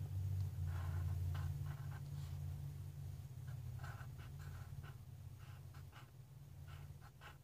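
Pencil scratching on notebook paper in short, irregular strokes, over a steady low hum that slowly fades.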